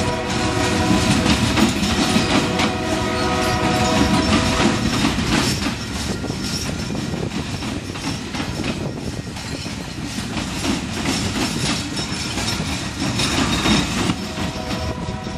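Loaded coal hopper cars rolling past, their steel wheels rumbling and clicking over the rails and crossing. A locomotive horn sounds steadily from down the line during the first five seconds and again near the end.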